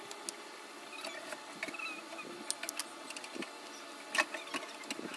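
Scattered light clicks and taps of hand tools and small parts on a laptop's metal-and-plastic base during disassembly, with a sharper cluster of clicks about four seconds in.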